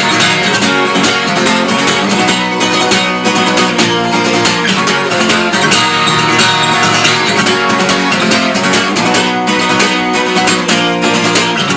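Guitar strummed fast and evenly in the gallop pattern of down-up-down strokes, mixing accented ringing chords with palm-muted, choked strokes.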